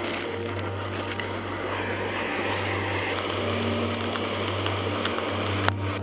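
Backpacking canister gas stove burning under a small cook pot: a steady roaring hiss with a low hum beneath. A single sharp click near the end.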